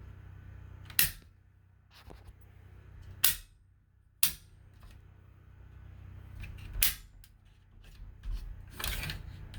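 Circuit breakers being snapped off in a home electrical panel: a handful of sharp clicks spaced a second or more apart, with a quiet, low, steady hum underneath.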